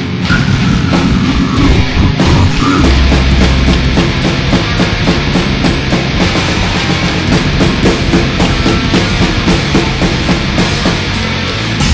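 Lo-fi experimental brutal death metal, with a drum kit hitting fast and densely throughout.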